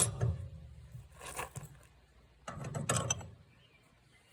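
Ratchet wrench clicking as it turns a long bolt on a homemade tire-changing rig: a short burst about a second in, then a longer run of ratcheting.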